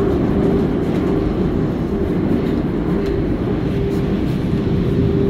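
Metro station ambience: a loud, steady rumble with a constant hum.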